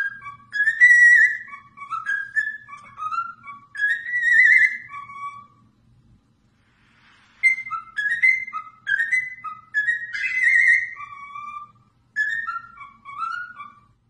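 Cockatiel whistling a tune: short phrases of rising and falling whistled notes, with a pause of about a second and a half midway.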